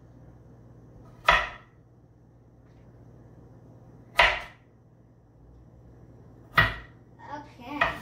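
Large kitchen knife chopping carrots on a cutting board: three sharp single knocks, spaced about two and a half to three seconds apart, with softer clatter just before the end.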